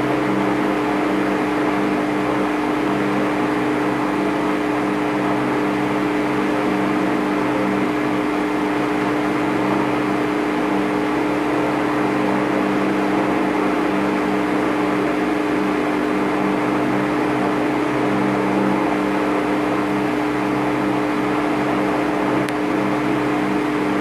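A steady, unchanging hum: a few constant low tones with a hiss over them, holding at the same level throughout.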